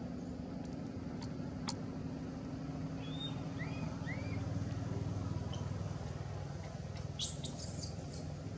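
Outdoor background of a steady low engine rumble from a vehicle, swelling a little in the middle, with a few short rising-and-falling chirps about halfway through. Near the end comes a brief dry rustle, fitting an infant macaque scrambling over dry leaves.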